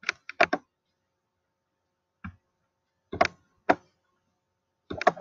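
Computer mouse clicking: a quick cluster of short clicks at the start, then a single click, a pair, and another pair near the end.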